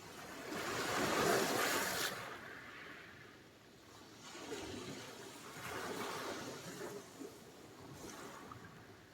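Sea surf: a wave washing in, loudest about a second in and cutting off after two seconds, then a second, softer wash from about four seconds in.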